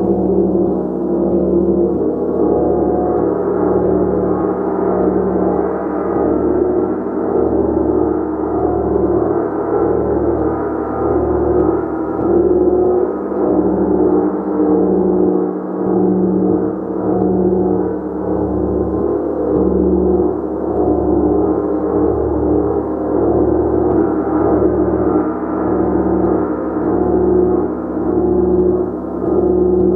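Gong played continuously with soft repeated strokes: a dense, sustained wash of overlapping ringing tones that swells and ebbs about every second or two.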